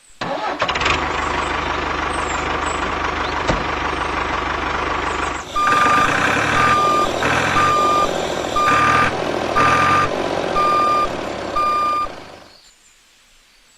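A truck engine runs steadily, then a reversing alarm beeps seven times at about one beep a second over the engine. Everything stops at once near the end.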